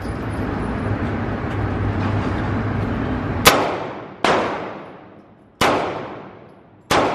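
Four pistol shots in an indoor range, each a sharp crack with a ringing echo that dies away, the first about three and a half seconds in and the rest at uneven spacing of one to one and a half seconds. Before them there is a steady background rumble with a low hum.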